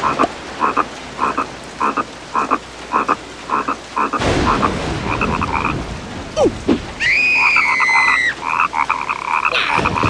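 Cartoon frog croaking: a run of short croaks about two a second, over the hiss of rain. About seven seconds in, a longer call slides down in pitch.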